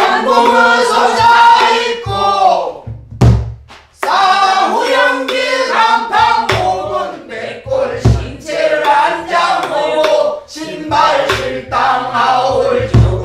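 A woman singing pansori solo and accompanying herself on a buk barrel drum. Three deep drum strokes fall about five seconds apart, with lighter stick taps between them.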